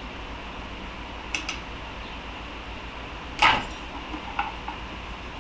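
Steel transmission parts of a Honda K-series gearbox's third-fourth synchro assembly clinking as they are handled: a couple of light clicks, then one loud clank with a short metallic ring about three and a half seconds in, and a few lighter ticks after it. The synchro sleeve is binding on its hub and won't slide off.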